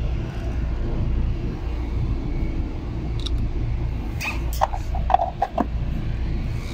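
A steady low rumble, with a quick cluster of sharp plastic clicks and knocks about four to five and a half seconds in as the lid is fitted onto a motor's plastic terminal box.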